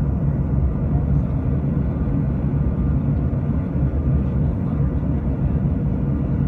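Airliner cabin noise: a steady low rumble of the engines and airflow, with faint steady whining tones above it.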